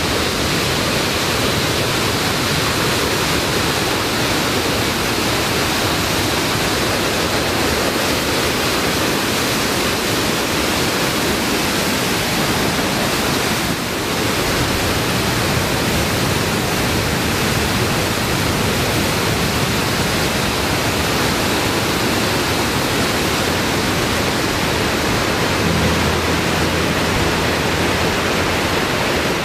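Waterfall in heavy spring snowmelt flow: a loud, steady rush of whitewater that barely changes.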